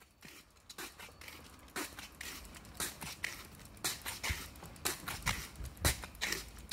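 Footsteps of a person walking on an asphalt street, about two steps a second, over a low rumble.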